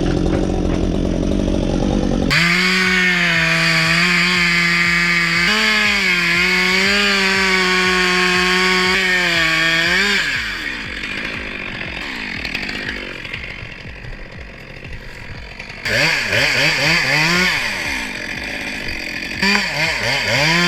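Two-stroke chainsaw cutting at full throttle, its engine note held high and nearly steady, dipping slightly under load. About ten seconds in it drops off to lower, rising-and-falling revs, then goes back to full throttle near the end.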